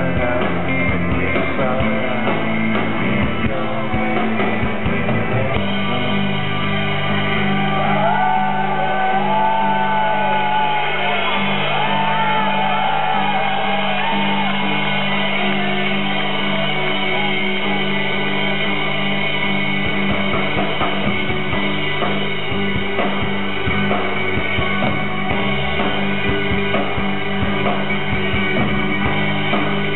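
Rock band playing live: electric guitars over drums in a dense, steady wall of sound.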